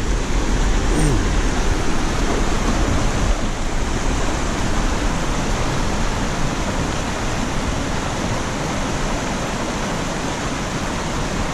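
Fast mountain creek rushing over rocks: a steady whitewater hiss.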